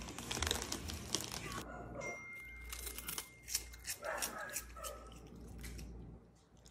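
A crinkly plastic snack bag rustling loudly as a raccoon digs its paws into it for the first second or so, then scattered sharp crunching as it eats a cheese puff.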